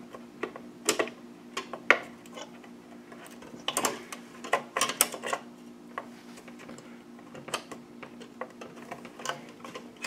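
Irregular clicks and light knocks as a PCIe expansion card and its metal bracket are wiggled against the slot and case while being lined up, which it is not doing because the bracket is caught, over a steady low hum.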